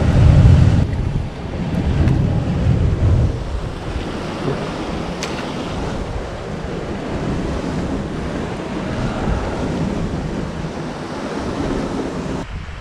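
Surf washing against rocky sea cliffs, with wind buffeting the microphone, heaviest in the first three seconds. A single sharp click about five seconds in.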